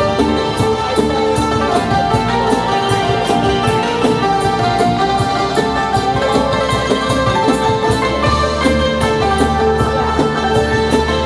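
Live band playing local Thai music: melodic instruments over a steady percussion beat.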